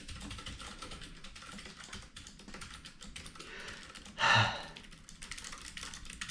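Typing on a Keychron K3 mechanical keyboard with low-profile blue clicky switches: a fast, continuous patter of key clicks. One louder thud stands out a little past four seconds in.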